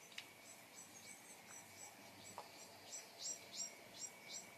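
Small songbirds chirping faintly: a run of short high chirps, about two a second, growing louder near the end, over a faint steady high tone.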